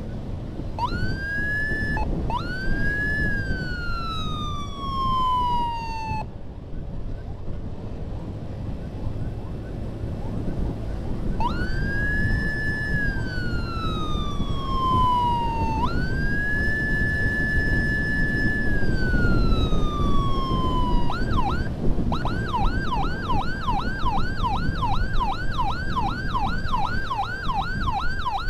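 Ambulance electronic siren sounding a slow wail, each sweep rising quickly and falling slowly, in two pairs with a pause of about five seconds between; for the last seven seconds it switches to a fast yelp of about three sweeps a second. A steady low engine and road rumble runs underneath.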